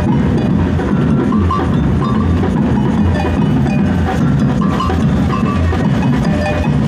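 Carnival percussion music: a loud, steady drum beat with repeating higher percussive hits over it.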